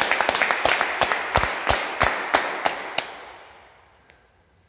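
Steady hand clapping, about three claps a second, growing softer and stopping about three seconds in.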